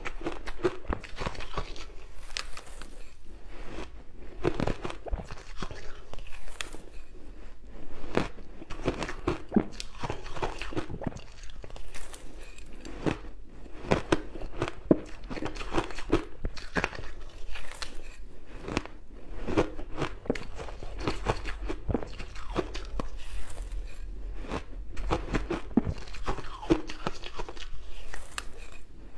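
Close-miked biting and chewing of mouthfuls of fluffy shaved ice mixed with hard coloured ice crystals: dense, irregular crunching that goes on without pause.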